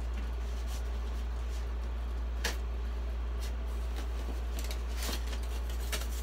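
Faint rustling and light clicks of styrofoam and plastic packaging being handled, over a steady low hum; one sharper click about two and a half seconds in and a few more around five seconds.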